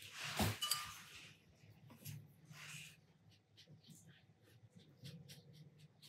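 Faint dabs and light taps of a small watercolour brush on paper, with a short hissing rustle about half a second in and a softer one near the middle.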